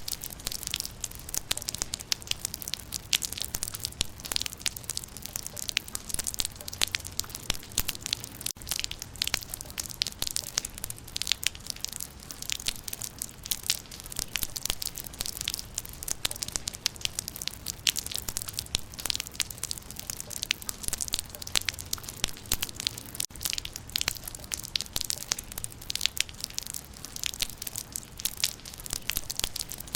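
Raindrops pattering on leaves: dense, irregular ticks and crackles over a steady hiss, with no change throughout.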